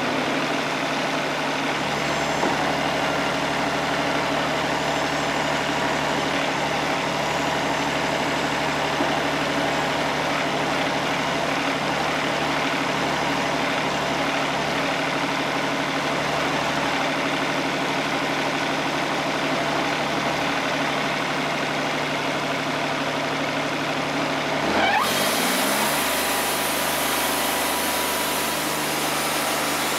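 Wood-Mizer LT50 Wide portable sawmill's engine idling steadily, then revving up near the end and holding at a higher speed with a high hiss added.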